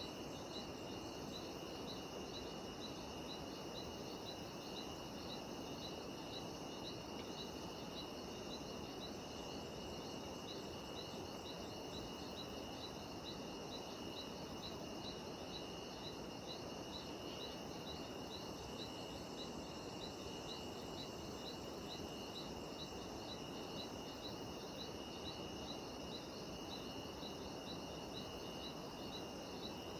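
Cicadas calling in a dense, unbroken chorus: a steady high drone with a pulsed call repeating about three times a second above it, over a constant background hiss.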